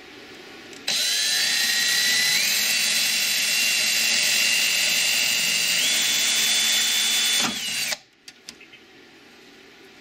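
Porter-Cable 20V cordless drill running a bit into a computer case's plastic tray, its motor whine stepping up in pitch twice as it speeds up. It starts about a second in and stops about seven and a half seconds in, followed by a few light clicks.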